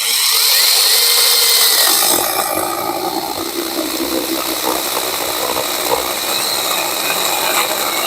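Imoum Live mini battery chainsaw running at speed, then cutting into wood from about two seconds in, until it stops at the end. Its battery is, by the owner's reckoning, starting to run down.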